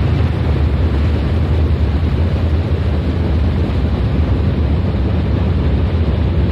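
Steady, loud low rumble with a fainter hiss above it and no clear notes: the closing noise drone of an experimental music track.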